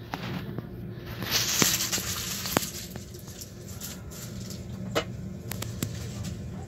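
Passenger-car interior of a Deutsche Bahn ICE 4 high-speed train: a steady low rumble, with a loud hiss about a second in that lasts about a second, and a few sharp clicks.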